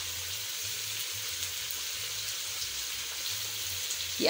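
Chicken pieces, green capsicum and freshly added tomato slices sizzling as they fry in an aluminium pot, a steady sizzle.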